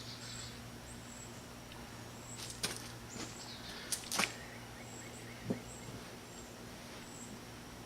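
A few brief rustles and knocks, likely from carpet being handled and laid out, over a steady low hum and short high chirps repeating in the background.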